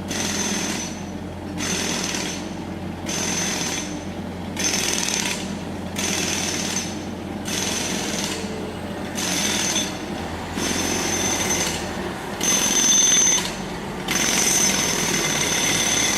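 Jackhammer road drill breaking pavement in repeated bursts of about a second each with brief pauses between, about ten in all, the last burst running longer, over a steady low hum.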